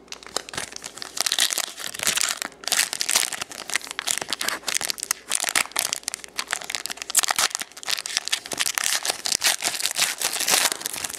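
Plastic trading-card pack wrapper crinkling and tearing as it is opened, a dense, crackly rustle with many sharp little clicks.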